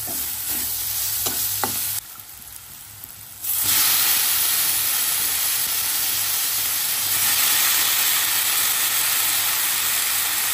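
Onion and chili masala sizzling in a hot wok, with a few quick spatula scrapes. About three and a half seconds in comes a much louder, steady sizzle of mushrooms frying in the wok.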